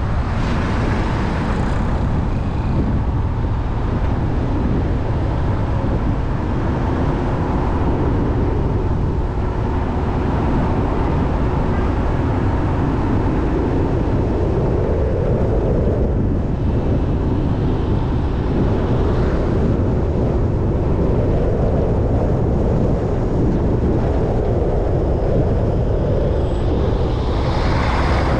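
A car driving along a road: steady engine and road noise, with the engine note rising and falling a few times.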